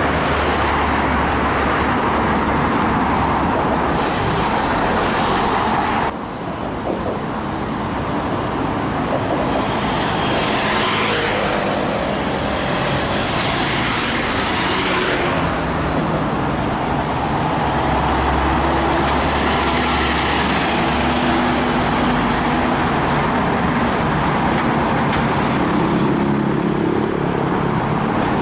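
Urban road traffic: vehicles, likely including buses, running and passing in a continuous noisy wash. The sound drops suddenly about six seconds in, then builds again.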